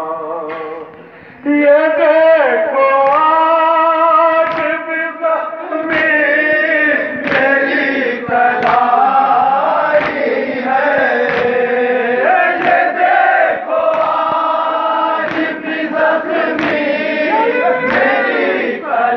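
A chorus of men chants a Shia nauha (Muharram lament) in unison, loud and led over a microphone, with sharp slaps of matam (chest-beating) falling through it. The chanting drops away briefly about a second in, then the chorus comes back in full.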